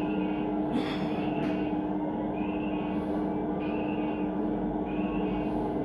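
Airport fire truck's engine and water pump running under load while its bumper turret sprays, a steady drone with a constant hum, heard through a television's speakers. A faint short high chirp repeats about every second.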